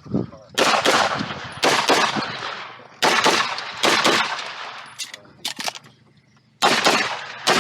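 Handgun shots fired in a practical-shooting course of fire, coming singly and in quick groups at an uneven pace, each shot trailing off in a long echo. There is a short quiet lull before a last loud shot near the end.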